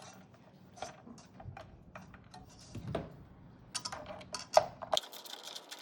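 Scattered light clicks, taps and knocks of computer hardware being handled while a CPU cooler is set down and fitted onto the processor, coming thicker and louder in the last two seconds.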